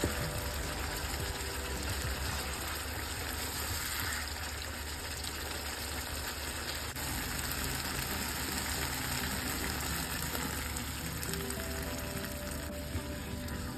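Background music over a steady hiss of curry gravy sizzling and simmering in the pan.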